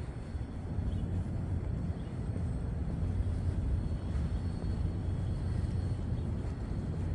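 Steady low rumble of outdoor city ambience, with a faint steady high tone above it.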